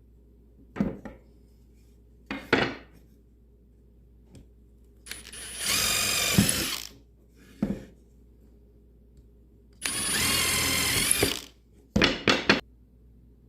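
Power drill pre-drilling holes in a wooden French cleat: two steady runs of about two seconds each, with short knocks of handling the drill and wood between them.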